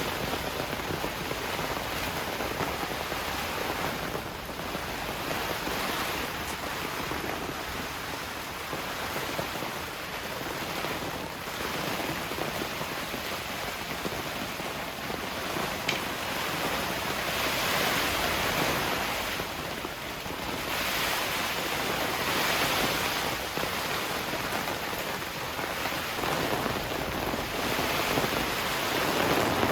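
Heavy downpour with gusting wind: a steady rushing hiss that swells louder in waves in the second half.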